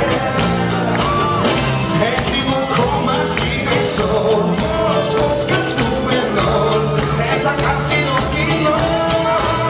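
Live band music with singing over a steady beat, tambourine-like percussion among it.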